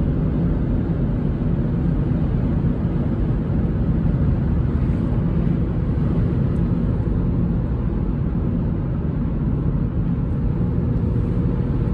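Steady road noise inside a car cabin at highway speed: a low rumble of tyres and engine with a faint steady hum.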